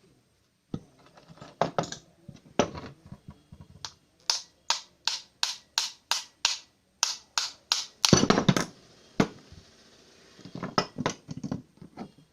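Hand tool tapping on the metal parts of an electric hand planer while its bearing is being worked off: a regular run of sharp taps, about three a second, then a louder, rougher clatter about eight seconds in and scattered knocks near the end.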